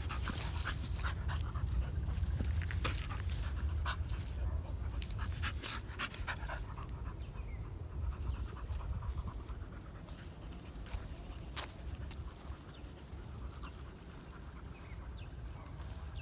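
Pit bull panting while rolling on her back in grass, with scattered short rustles and clicks; the rustling thins out about halfway through as she settles and then walks off. A steady low rumble runs underneath.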